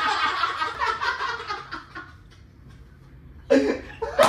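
A man laughing, a loud burst lasting about two seconds, then quieter, and a second burst of laughter near the end.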